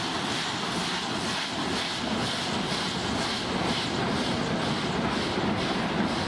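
Narrow-gauge steam tank locomotive working along the line, its exhaust beating in a steady rhythm over the clatter of the coaches' wheels on the rails.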